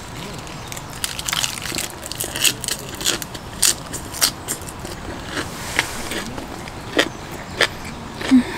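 A lettuce wrap of grilled pork being handled and then chewed close to the microphone: a run of irregular crisp crunches and clicks, a few of them sharply louder.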